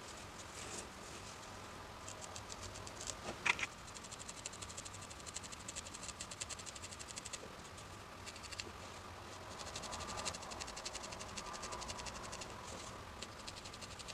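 Reverse felting needle jabbing in and out of wool felt in quick, faint scratchy ticks as it pulls fibres up into spikes, with one sharper click about three and a half seconds in.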